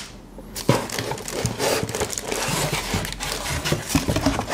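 Cardboard packaging being handled: a dense crackle of crinkling, scraping and small knocks that starts with a sharp knock under a second in.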